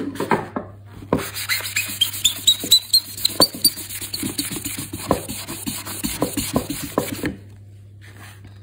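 Damp melamine sponge rubbed hard back and forth on a pine wooden chair seat, squeaking against the wood in quick strokes. A run of squeaks climbs in pitch about two seconds in, and the scrubbing stops about seven seconds in.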